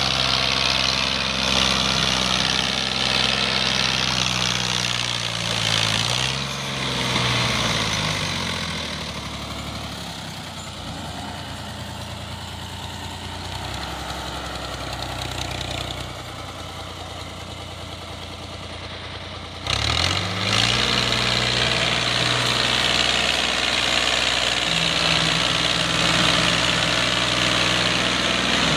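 Ghazi tractor's diesel engine running steadily while hauling a heavily loaded trolley. Its note rises and falls briefly about six seconds in, then it is fainter for a while. It turns suddenly louder again about two-thirds of the way through.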